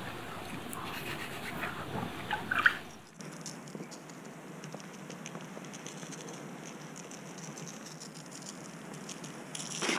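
A knife scraping along a grayling on a plastic cutting board for about three seconds. Then salt is shaken from a shaker onto raw grayling fillets laid on paper, a faint steady patter of fine grains, to cure them as gravlax.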